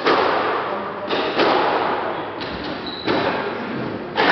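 Squash rally: the ball is struck by racquets and smacks off the court walls, about six sharp hits echoing around the court.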